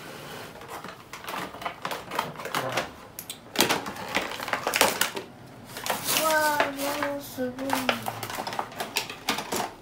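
Small plastic toy pieces clicking, tapping and rattling as they are handled, in quick irregular clicks. A child's brief wordless voice sound, falling in pitch, comes about six seconds in.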